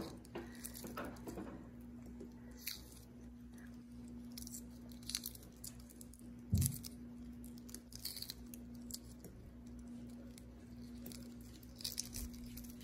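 Shell of a hard-boiled egg being cracked and peeled off by hand, scattered small crackles and tearing as the shell and its membrane come away, with one louder knock about halfway through.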